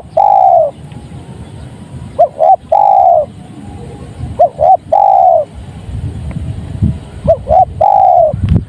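Spotted dove (tekukur) cooing: a repeated phrase of two short notes followed by one long drawn-out coo, given four times at about two-and-a-half-second intervals.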